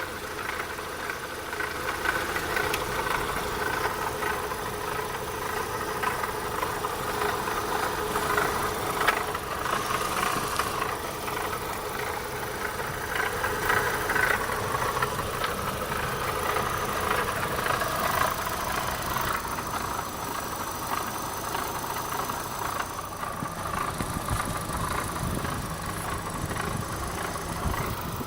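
Opel Astra's 1.6 16V (X16XEL) four-cylinder petrol engine running steadily with a rattling noise from the engine.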